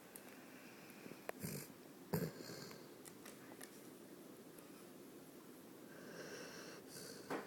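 Bully Bassett dog snoring in its sleep, faintly: two short snores about a second and a half and two seconds in, then a longer, softer one from about six seconds that ends sharply near the end.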